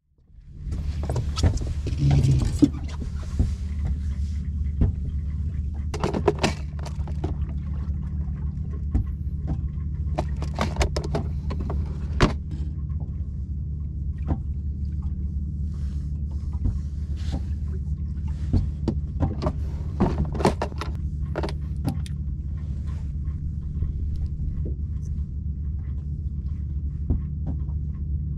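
Small two-stroke outboard motor running steadily, with scattered knocks and rattles on top.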